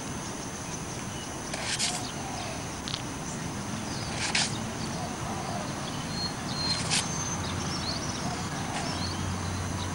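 Outdoor ambience heard through an old camcorder's microphone: a steady hiss with a thin high whine, small birds chirping here and there, and a short sharp sound about every two and a half seconds.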